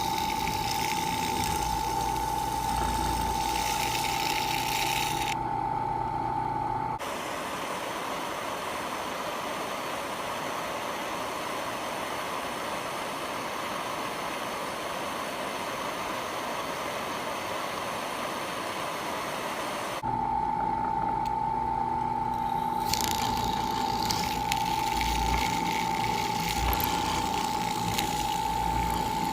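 Electric drill running with a steady high whine. The whine gives way to an even hiss about seven seconds in, and comes back about thirteen seconds later.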